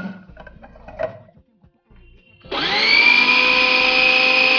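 Plastic clicks and knocks as the food processor's lid is fitted, then about two and a half seconds in the electric food processor's motor starts, quickly rising to a loud, steady whine as it chops raw mutton with mint and onion.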